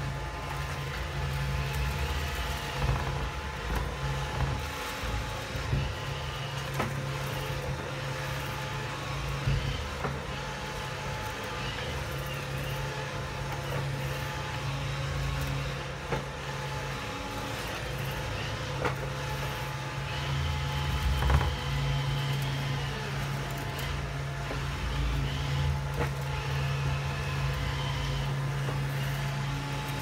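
Roomba 620 robot vacuum running over rolled oats: a steady motor and brush hum with a higher whine that comes and goes, and now and then a sharp click.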